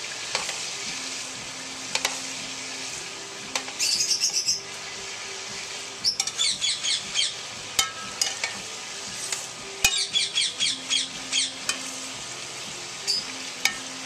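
Chicken pieces sizzling as they brown in grease in a pot, with a metal spoon stirring and now and then clicking against the pot. Birds chirp in short rapid trills several times.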